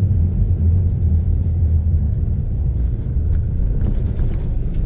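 Toyota Hilux camper driving slowly, with a steady low engine and road rumble.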